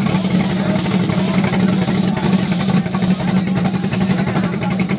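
Race car engine idling loudly with a steady low drone.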